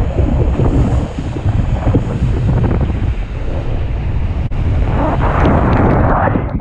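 Wind buffeting an action camera's microphone while a wakeboard cuts across the water, with the hiss of spray off the board. About five seconds in, the hiss grows louder as the board runs up onto a ramp.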